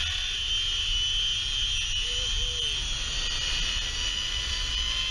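Zip-line trolley pulleys running along the steel cable at speed, a steady high-pitched whine, with wind rumbling on the microphone.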